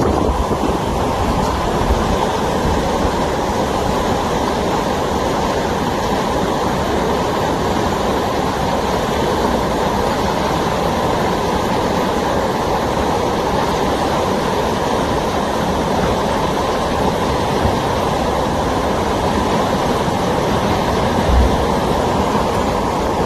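Torrential rain and rushing floodwater make a loud, steady roar, with one brief low thump near the end.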